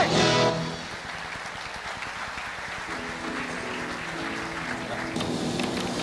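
The end of a stage rock song, then audience applause. Faint held music tones come in under the clapping about halfway through.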